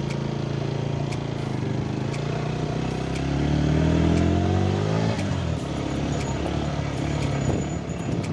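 Motorcycle engine running steadily, then revving up for about two seconds before the revs drop off about five seconds in, leaving a rougher rumble.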